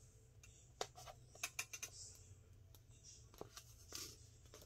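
Faint handling sounds of hand-sewing paper: a few light clicks and soft rustles as a needle and thread are drawn through pre-poked holes, over a steady low hum.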